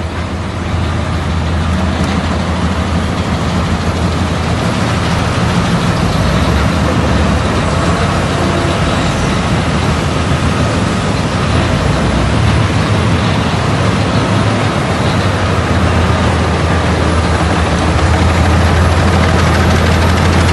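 Heavy diesel machinery running steadily: a wheel loader and a mobile wood chipper at work, a constant deep engine drone with a faint steady whine above it.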